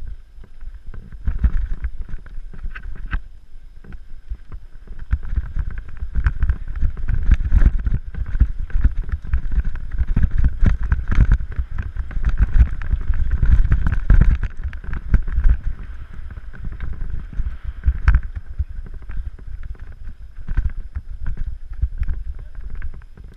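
Wind buffeting the microphone over the rumble and rattle of a mountain bike riding a rough dirt trail, with many small knocks and clicks, louder in the middle stretch.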